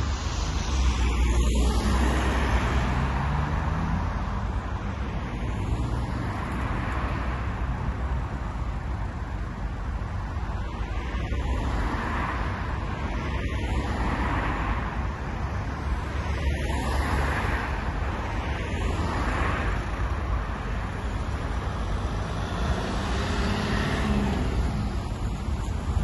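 Road traffic: a line of cars and vans driving past one after another in a steady stream.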